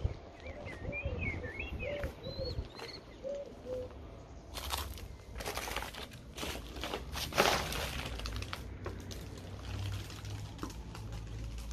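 Small birds chirping for the first few seconds, then crackling, rustling footsteps over scattered paper and plaster debris, over a low steady rumble.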